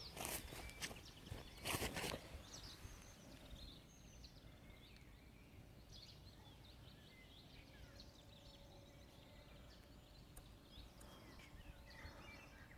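Faint outdoor ambience with scattered small bird chirps. A few sharp crunching clicks come in the first two seconds.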